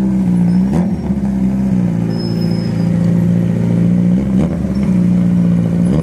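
Kawasaki Z900 inline-four with an SC-Project aftermarket exhaust, running steadily. The rider gives two short revs, about a second in and again at about four and a half seconds.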